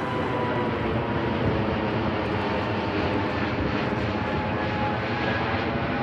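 Jet airliner's engines running loud and steady as it passes close by, with a faint whine that drifts slowly lower in pitch.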